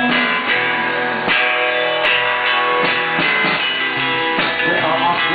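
Live band playing: strummed guitar chords over a drum kit, with a steady pulse of strokes about every half second.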